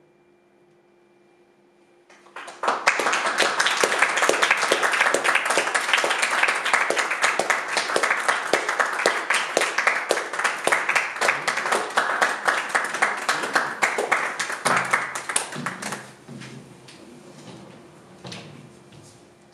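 Audience applauding. Applause breaks out suddenly about two seconds in, stays dense and steady, then thins to scattered claps with a few voices near the end.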